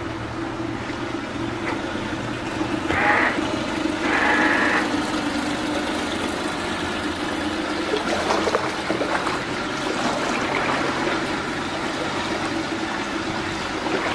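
Outboard motor idling steadily close by. Two short high-pitched sounds come about three and four seconds in.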